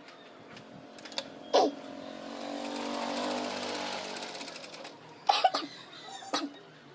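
Sewing machine run briefly: it speeds up and slows down again over about two seconds with rapid ticking, and two sharp knocks, one before it starts and one after it stops.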